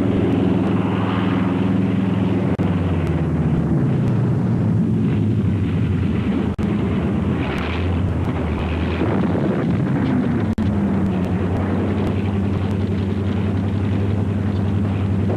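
Propeller aircraft piston engines running with a steady low drone, the pitch falling once partway through as an engine passes or throttles back.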